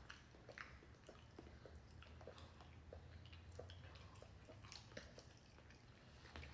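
Faint chewing: small wet mouth clicks and smacks, scattered irregularly, over a low steady hum.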